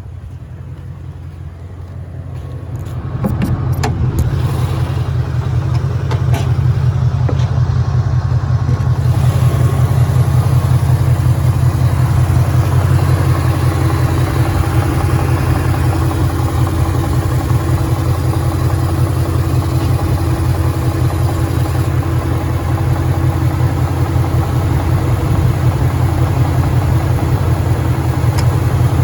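2013 Ford Mustang GT's 5.0 Coyote V8 engine running. It gets louder about three seconds in, with a few clicks, then runs steadily. The owner reports rod knock coming from this engine.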